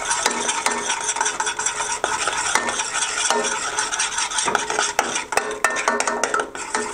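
Metal utensil stirring fast and scraping in a stainless steel pot, with frequent quick clinks against the pot, as flour is beaten into hot, sizzling melted kaymak (clotted cream) to make kuymak.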